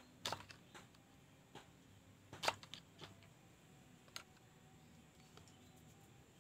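A few light clicks and taps at irregular intervals, the loudest about two and a half seconds in: small metal and plastic parts and tools being handled.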